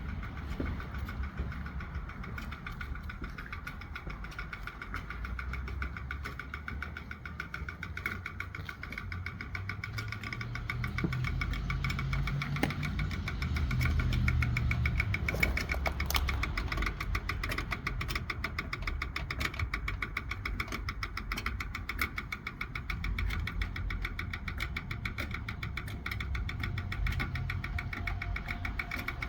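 An engine running steadily, with a fast, even ticking throughout.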